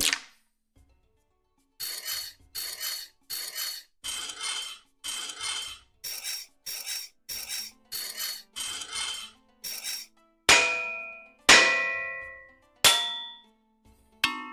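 Sword blade being sharpened: a run of short, even scraping strokes of metal drawn along the edge, with a faint ring to each. Then three heavy metal hits on a shield, each clanging and ringing away over about a second.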